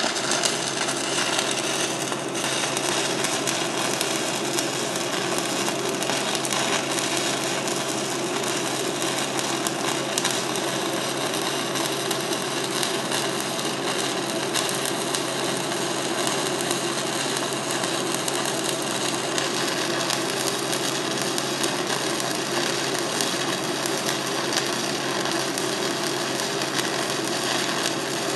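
Stick-welding (SMAW) arc from a 3/32-inch Lincoln Excalibur 7018 electrode running a hot pass on steel pipe: a steady, even crackle.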